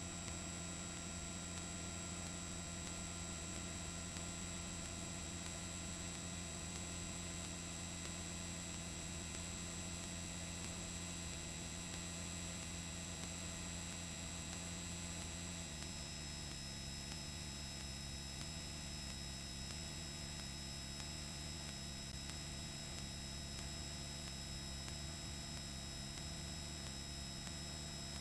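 Steady hum with several constant high-pitched tones and no speech; the low part of the hum changes pitch about halfway through.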